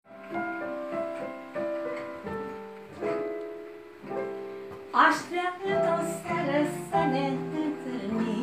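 Piano intro of chords, each struck and left to fade, about one a second. About five seconds in, a woman's singing voice comes in over the piano.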